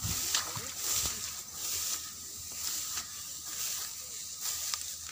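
Footsteps swishing through wet, cut rice stubble, about one step a second.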